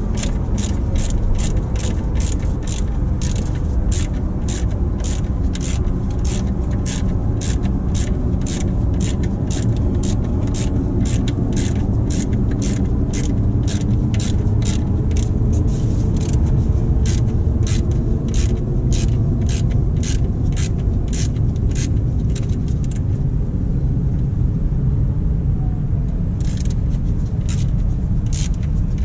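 Hand ratchet wrench being worked back and forth, clicking about twice a second, on the bolts of a truck's power steering pump bracket. The clicking stops about three-quarters of the way through and comes back a few times near the end. A loud steady low rumble lies underneath throughout.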